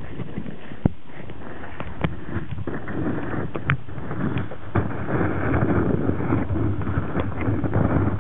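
Muffled underwater churning of water from a Pembroke Welsh corgi dog-paddling right beside the microphone, heard from under the surface, with scattered sharp clicks and knocks. The churning grows denser and louder from about five seconds in.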